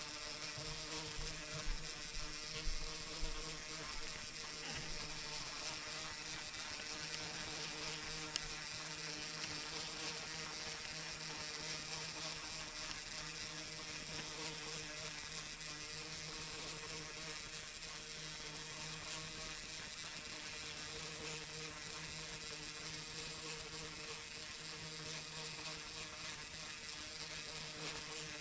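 Lego Technic plastic gear train driven by a small electric motor, running with a steady buzzing whir. A few light clicks come in the first three seconds.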